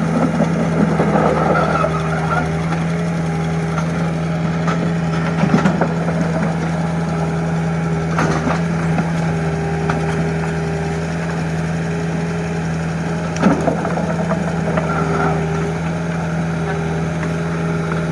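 Mini excavator's engine running steadily at idle, with a few short knocks from the machine now and then.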